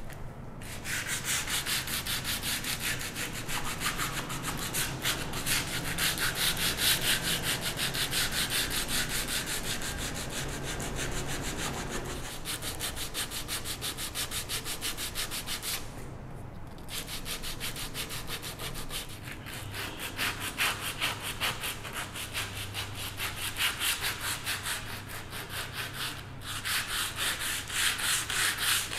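Sandpaper held in the hand rubbing back and forth over a wooden stool seat, sanding with the grain in quick, even rasping strokes. It stops briefly twice, about halfway through and again near the end, and then starts again.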